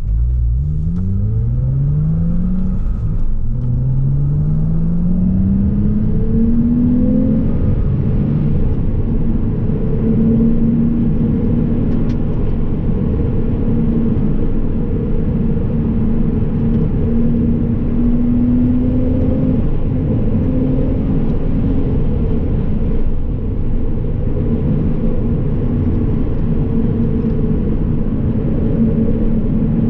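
2010 Porsche Cayman S's 3.4-litre flat-six accelerating hard from a crawl, its pitch climbing in steps through several upshifts over the first seven seconds or so. It then runs steadily at speed with small rises and dips, over heavy tyre and road rumble, heard from inside the cabin.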